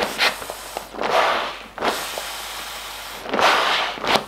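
Built-in foot pump of an inflatable sleeping mat pressed with a shoe, air rushing through it with each stroke, three times, along with crinkling of the mat's nylon fabric.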